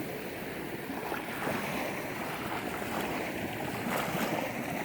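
Ocean waves washing steadily onto the beach, with some wind.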